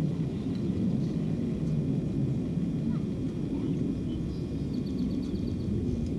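Steady low outdoor rumble, with a bird's short, rapid, high trill about five seconds in and a few faint chirps before it.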